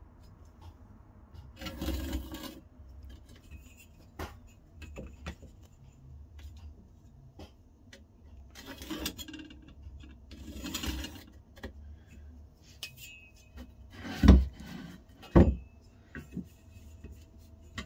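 Pencil scratching lines across a cherry wood blank against a steel rule, with the rule and square sliding and tapping on the wood. Late on, two heavy thumps about a second apart as the wooden block is turned over and set down on the bench.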